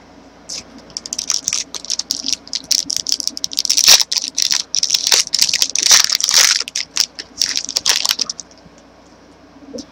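Foil trading-card pack wrapper crinkling and crackling as it is handled and opened, a dense run of sharp crackles that starts about a second in and stops shortly before the end.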